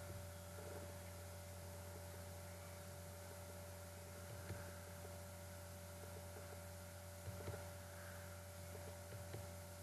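Low steady electrical hum with a fainter steady tone above it and a soft background hiss, with a few faint ticks.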